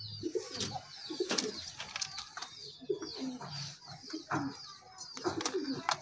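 Domestic pigeons cooing, repeated low warbling coos, with sharp clicks and short high chirps over them.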